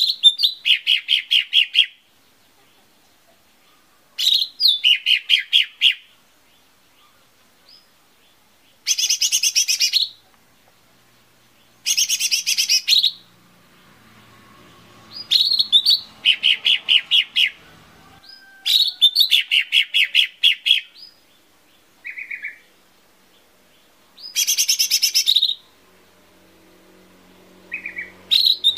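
Cucak ijo mini (lesser green leafbird) singing in repeated phrases of a second or two, separated by pauses. Most phrases open with a quick rising note and run into a fast string of sharp chirps at about five a second. A few phrases are higher, buzzier trills.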